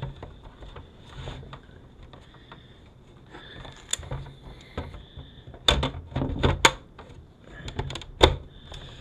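Sharp plastic clicks and knocks as the plastic housing of a van's overhead video entertainment screen is pressed together and handled on a wooden table, several in quick succession in the second half, the loudest near the end.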